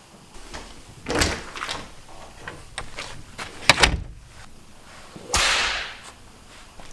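Handling sounds: a series of clicks and knocks with one louder bang about halfway through, then a short rushing whoosh that fades near the end.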